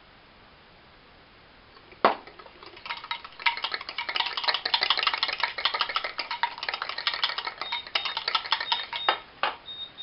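Metal whisk beating melted butter into egg yolks in a ceramic bowl for hollandaise: rapid clinking strokes against the bowl, starting after a sharp knock about two seconds in.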